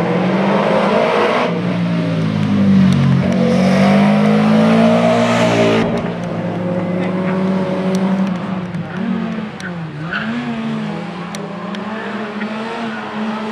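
Slalom race car's engine revving hard, its pitch climbing and dropping again and again with gear changes and lifts of the throttle, with a loud hiss over it for the first few seconds that stops suddenly.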